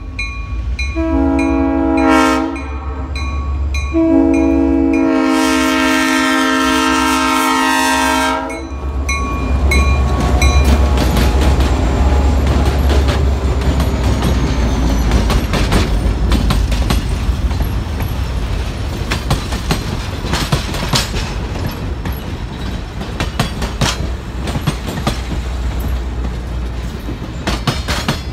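A diesel locomotive's multi-chime air horn sounds a short blast and then a long one, the end of a grade-crossing signal, over the low rumble of its engine. The train then passes close by: the engine's rumble followed by the passenger cars' wheels clicking and clacking over the rail joints.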